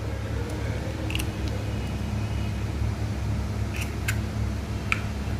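Eggs being cracked and opened over a glass bowl: a few short, sharp clicks of shell over a steady low hum.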